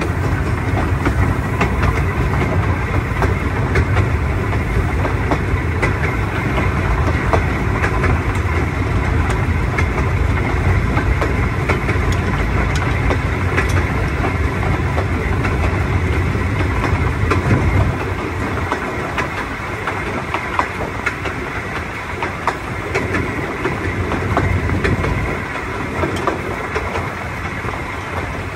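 The 1898 Hunslet quarry locomotive 'Covertcoat' running along 2-foot-gauge track, heard from on board: a steady rumble and clatter of the moving engine and its wheels on the rails. The low rumble eases about eighteen seconds in.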